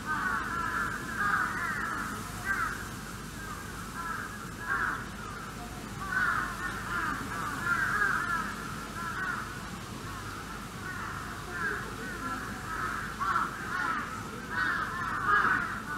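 Animals calling: many short calls overlapping in a continuous chorus, swelling into louder clusters every second or two.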